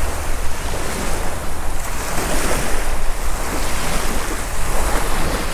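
Wind buffeting the microphone in a steady low rumble, over the continuous wash of small waves on the shore.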